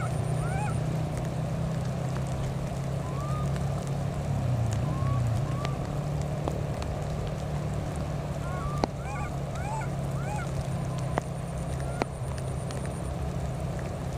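Newborn baby monkeys crying in short, arched, high-pitched calls that come in clusters: a few right at the start, some rising calls in the middle, and another run about eight to ten seconds in. Under them is a steady low mechanical hum, and a few sharp clicks come near the end.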